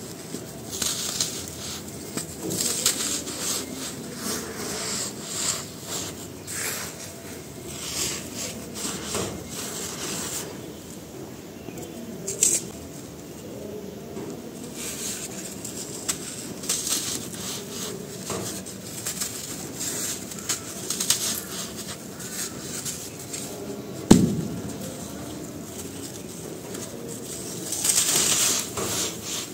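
Dry sand-cement chunks crushed and crumbled in bare hands: irregular crunching and gritty crackling as the lumps break and powder trickles onto the pile. One sharp crack about three quarters of the way through, and a denser spell of crumbling near the end.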